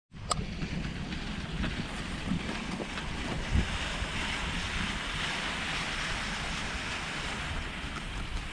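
Wind buffeting the microphone over a steady hiss of sled runners gliding on groomed snow as the dog sled is pulled at speed, with a click near the start and a thump about three and a half seconds in.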